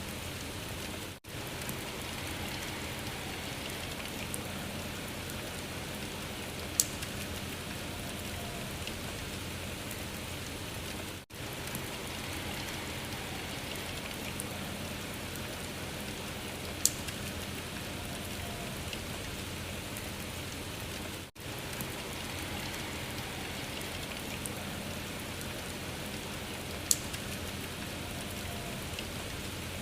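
Steady rain sound, a ten-second recording looped over and over: a brief dip at each seam and one sharp click in each loop, three in all.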